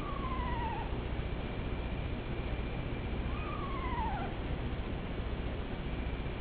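An unidentified animal calling twice outside, with the calls about three seconds apart. Each call lasts under a second, starts high and slides downward with a wavering tremble. A faint steady high tone and a low rumble run underneath.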